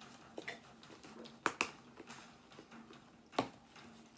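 Plastic snack-tub lid being handled, giving sharp plastic clicks: two in quick succession about one and a half seconds in and one more about three and a half seconds in.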